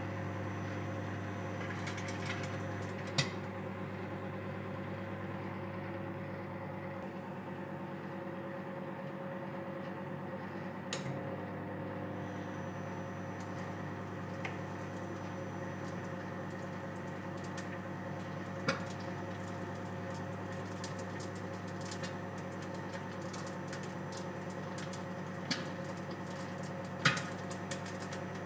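Microwave oven running with a steady hum while an egg fries in oil on a plate inside, with a handful of sharp pops from the egg and oil spread through it.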